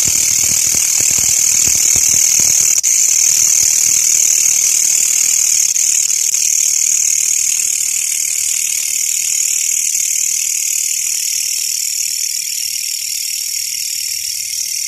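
Dense chorus of night insects: a loud, steady, high-pitched buzz that eases slightly in the last few seconds.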